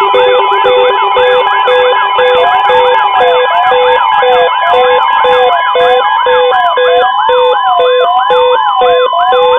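Several electronic siren sounds layered together: a fast yelp sweeping up and down about three times a second, a slower wail sweeping about once a second, and an even pulsing beep, all over a steady high alert tone like the 1050 Hz weather-radio warning alarm.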